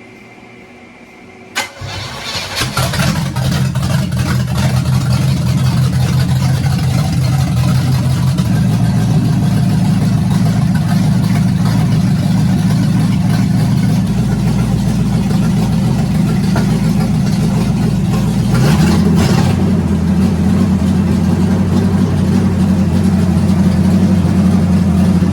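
Oldsmobile 350 V8 with a freshly fitted Edelbrock intake and 600 carburetor cranking briefly and catching about two seconds in, then running steadily on a cold start with no choke hooked up. Its note shifts once, about nineteen seconds in.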